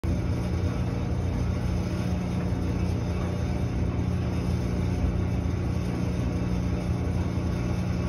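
Samsung front-loading clothes dryer running, its drum tumbling a load of laundry: a steady low rumble with a motor hum.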